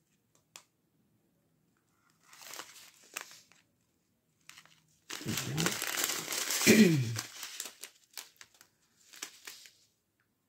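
Small clear plastic zip-lock bags of diamond painting rhinestones crinkling as they are handled, in short bouts: briefly about two seconds in, loudest from about five to seven and a half seconds, and briefly again near the end. During the loud stretch a voice makes two short sounds that fall in pitch.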